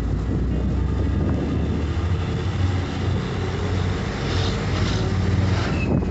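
Bus engine running and tyre and road noise heard from inside the moving bus: a steady low drone.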